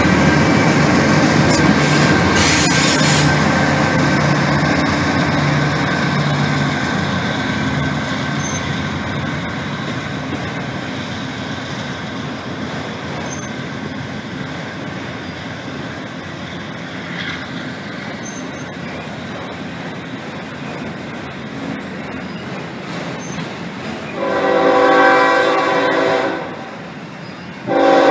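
Freight train of autorack cars rolling past, a steady rumble with wheel and rail noise that slowly fades. Near the end an approaching diesel locomotive sounds its horn: one long chord blast, then a second starting just before the end.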